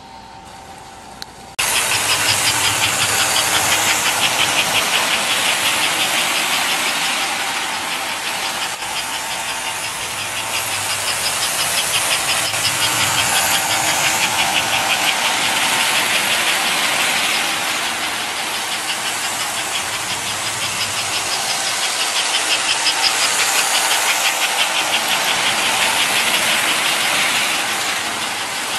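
1958 American Flyer S-gauge toy steam locomotive and its train running on the track close by: a steady electric motor hum with a fast, even clatter of wheels on the rails. It starts abruptly about a second and a half in, then swells and fades slowly as the train passes.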